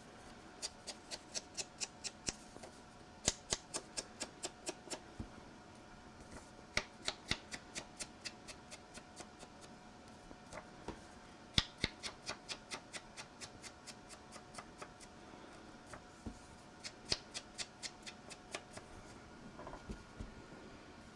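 Ink pad being tapped along the edges of a paper piece to ink them: runs of quick, light taps, about five a second, broken by short pauses, over a faint steady hum.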